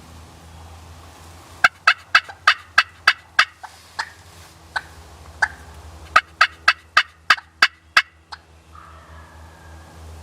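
Turkey yelping: two loud runs of sharp, short notes, about three a second, with a few single notes between them.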